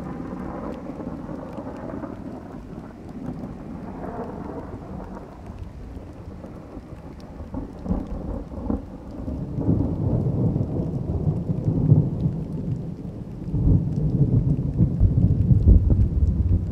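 Rolling thunder: a rumble that fades over the first few seconds with a brief swell about four seconds in, then deep, low rumbling that builds from about ten seconds in and grows loudest near the end.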